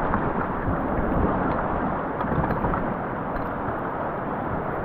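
Whitewater rapids rushing in a steady, even roar.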